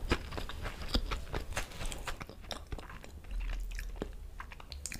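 Close-miked mouth sounds of someone finishing a mouthful: chewing with irregular wet clicks and lip smacks as the lips are licked.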